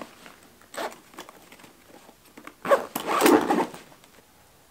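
Zipper on a camera backpack's bottom compartment being pulled shut: a short pull about a second in, then a longer, louder zip run at about three seconds.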